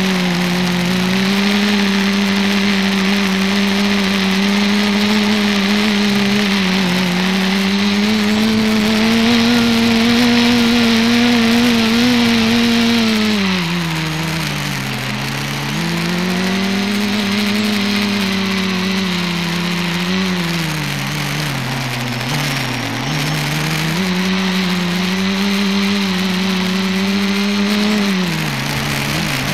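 ETFD2 flying-disc multicopter's electric motors and propellers buzzing loudly, heard close up from the camera mounted on the craft, over a steady hiss. The pitch holds, then sags and climbs back as the throttle changes, most deeply about halfway through, a few times more lightly after that, and again just before the end.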